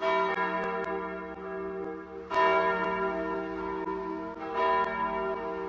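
A deep bell tolling three times, about every two and a quarter seconds, each strike ringing on over a low steady drone.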